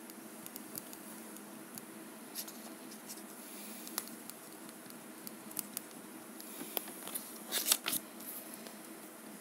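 Faint scratching and rustling of hand-handling close to the microphone, with scattered small clicks and a short cluster of louder scrapes about three-quarters of the way in.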